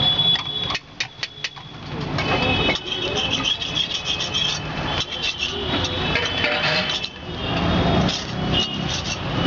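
Busy roadside background of traffic and voices, with a quick run of sharp metallic-sounding taps about a second in.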